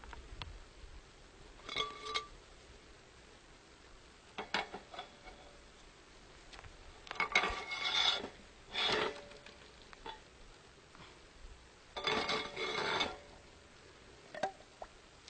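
Metal scraping and clinking at a hole in frozen lake ice as water is dug out and drawn, in about six short bouts of a second or less, a few seconds apart, each with a faint metallic ring.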